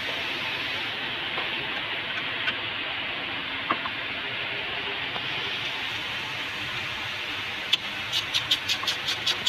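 Steady mechanical running noise, like an engine running nearby. Near the end a ratchet wrench starts clicking rapidly, about five clicks a second, as a bolt on an AC condenser line fitting is turned.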